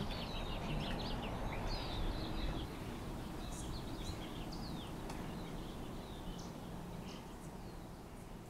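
Small birds chirping in short, scattered calls over a steady low background hum of outdoor ambience, the whole slowly fading out.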